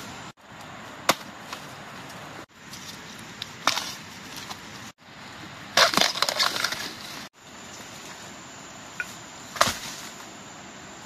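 Sharp cracks and snaps of wood breaking. There is a single crack about a second in and another near four seconds, then a dense burst of crackling and splintering around six seconds, and one more crack near the end, with brief dropouts between them.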